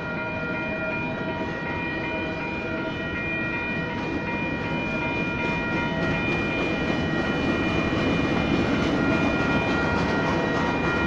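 Union Pacific manifest freight train's cars rolling through a grade crossing, wheels rumbling and clattering on the rails, growing louder about four seconds in. Under it the crossing's WCH Type 1 bells ring steadily.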